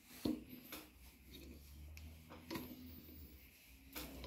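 Faint clicks and knocks of a Tormek knife jig being handled, its knob turned and the jig pressed onto a steel dagger blade to clamp it. The sharpest click comes about a quarter second in, with a few more scattered through the rest, the last near the end.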